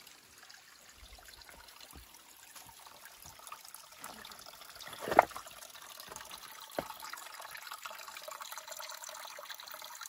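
Water trickling, a steady rush that grows a little louder partway through. About five seconds in there is one sharp knock, the loudest sound here, and a smaller one follows a second and a half later.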